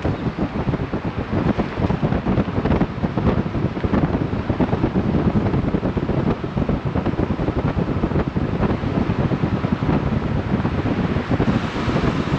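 Wind buffeting the microphone of a camera held at the window of a moving car, over the car's road and engine noise. The hiss turns brighter near the end as the car passes into a concrete underpass.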